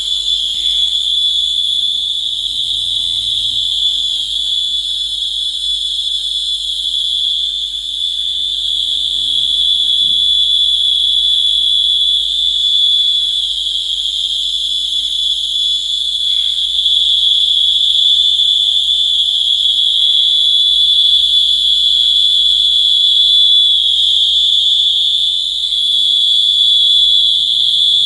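Steady, high-pitched electronic beep from an LDR (light-dependent resistor) sound circuit, with laser light falling on the LDR. The tone holds one pitch and grows a little louder about halfway through.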